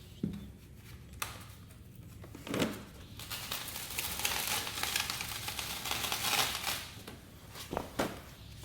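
Crinkling and rustling of material being handled, with a few sharp clicks and knocks near the start and near the end.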